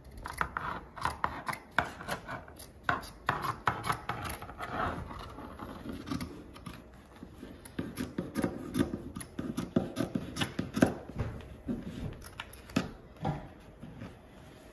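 Fabric shears cutting through two layers of fleece: repeated, irregular snips, each blade closure a short crisp click with the rasp of fabric being sheared and rubbed.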